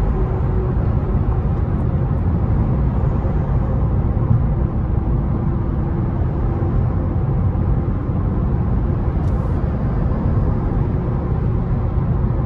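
Infiniti Q50's 3.0-litre twin-turbo V6 (VR30) and tyres heard from inside the car while it cruises at a steady speed on the highway: an even low rumble with no revving.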